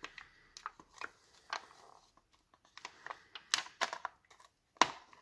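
Hands working inside an opened Microsoft Surface Pro 4: adhesive tape crinkling and tearing and small plastic clicks as the flex cables are handled, irregular, with the sharpest clicks about three and a half and just under five seconds in.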